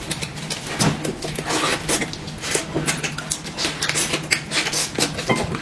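Close-up eating noises: irregular wet clicks and smacks of chewing, over a faint steady low hum.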